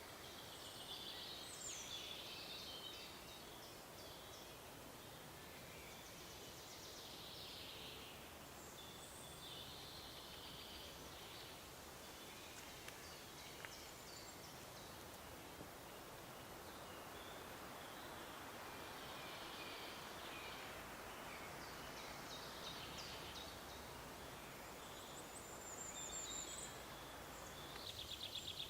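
Faint forest ambience with songbirds singing short phrases every second or two over a steady soft hiss. Near the end comes a fast, rattling trill.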